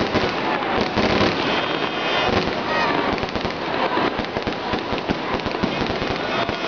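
Aerial fireworks bursting overhead: a dense, unbroken run of bangs and crackles.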